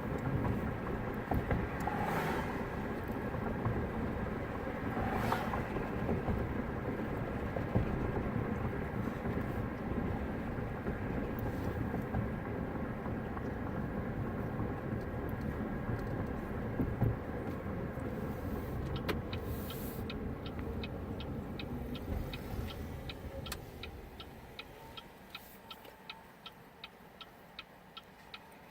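Road and engine noise inside a moving car's cabin, fading as the car slows near the end. From about two-thirds of the way in, the turn-signal indicator ticks steadily, a couple of clicks a second.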